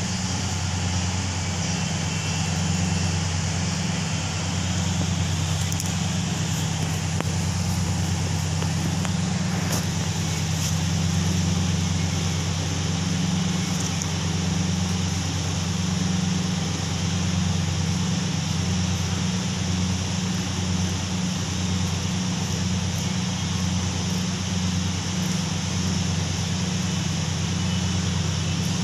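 Steady low drone of running machinery with a constant hiss over it, unchanging throughout.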